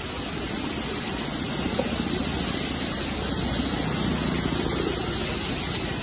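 Muddy floodwater of a swollen mountain river rushing past in a steady torrent.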